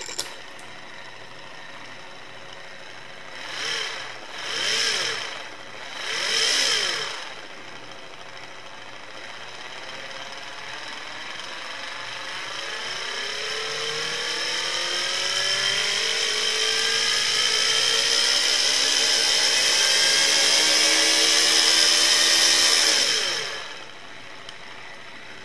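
Small DC electric motor spinning the pulleys, belt and fan of a 1:6 scale 426 Hemi model engine. It idles with a steady whine and is revved three times in quick swells a few seconds in. It then winds up slowly in a long rising whine for about fifteen seconds, and drops back to idle near the end.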